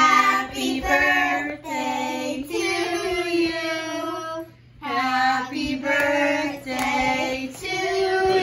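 Several young girls singing a birthday song together, in long held phrases with a short break about halfway through.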